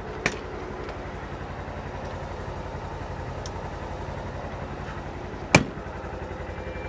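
Polaris Ranger UTV engine idling with a steady low, even pulse. A short click comes just after the start, and the cab door slams shut about five and a half seconds in, the loudest sound.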